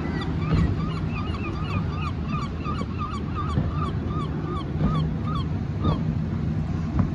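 A bird calling in a quick series of short rise-and-fall notes, about three a second, stopping about six seconds in, over a steady low rumble.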